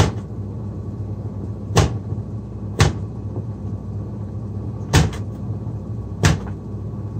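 Kitchen knife chopping a carrot on a cutting board: five sharp knocks at uneven intervals, over a steady low hum.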